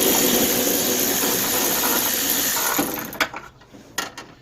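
A power tool on a 10mm socket running for about three seconds, undoing the bolt that holds a car's exterior door handle, then stopping, with a few light clicks after.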